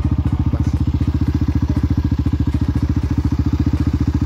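Motorcycle engine, a Dinamo Renegada 250 chopper, running steadily with a low, rapid, even pulse of about sixteen beats a second.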